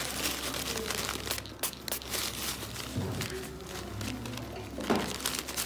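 Crinkling and rustling of a paper sheet and gauze being handled under and around a foot during a toenail cleaning, with irregular small ticks and a louder brief noise about five seconds in.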